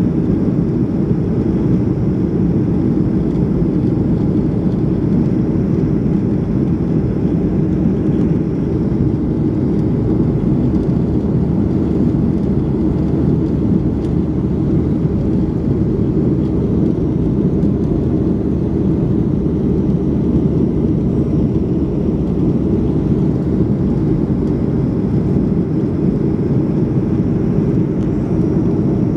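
Steady drone of a Boeing 737's jet engines and the rush of air along the fuselage, heard from inside the passenger cabin in flight. The sound is a deep, even roar that does not change.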